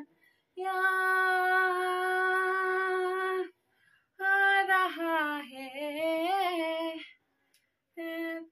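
A woman sings a Kumaoni folk song unaccompanied. She holds one long steady note, then sings a phrase that wavers up and down, then a short note near the end, with brief pauses for breath between them.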